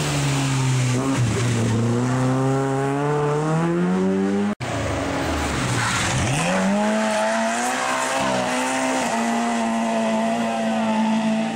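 Rally car engines at full throttle, pitch climbing steadily as they accelerate. The sound cuts off abruptly about four and a half seconds in, then a second pass follows: the engine dips, climbs again and holds at high revs through the rest.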